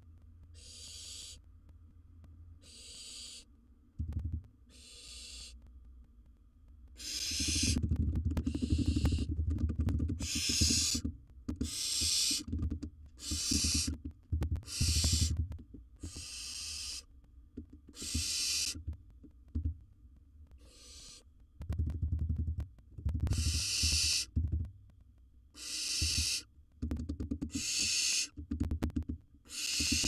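Barn owl hissing calls: a long run of short, harsh hisses, roughly one a second with brief pauses. From about seven seconds in, low thumping and rustling from movement in the nest box sounds beneath them.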